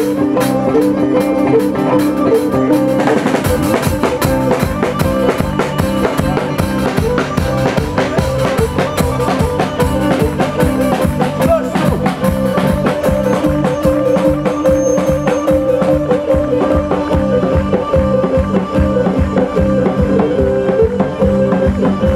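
Live Greek folk dance music: a drum kit keeping a fast, steady beat under a sustained bowed-string melody, with the bass drum coming in about three seconds in.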